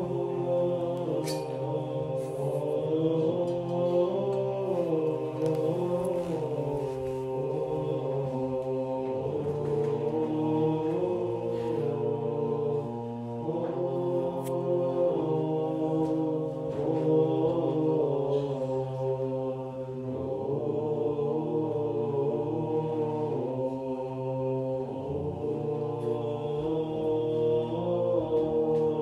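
Monks chanting a hymn of Orthodox Matins: several voices sing together, the melody moving in steps over a held low note beneath it.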